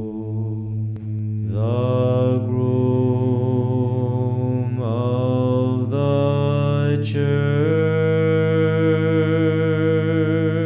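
A man's voice chanting Byzantine chant over a steady low drone (the ison). The melody comes in about a second and a half in, on long held notes that step to new pitches a few times.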